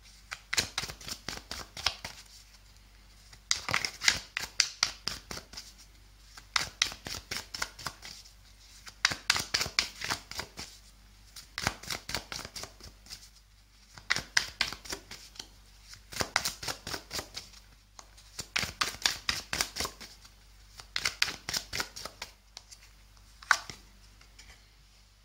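A tarot deck being shuffled by hand: about ten runs of rapid flicking clicks as the cards slide against each other, each run a second or two long, with short pauses between.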